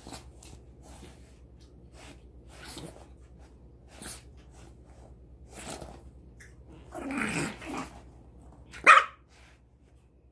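Small white pet dog in a play bow, giving a rough growl about seven seconds in, then one sharp bark near the end: a dog provoking its owner for play or attention. Soft scuffing and sniffing sounds come before the growl.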